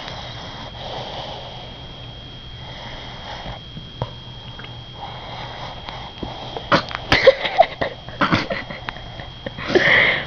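A sleeping dog snoring: slow, soft breathy snores about every two seconds, then a run of sharper snorts and sniffs in the second half, with a louder breathy snort near the end.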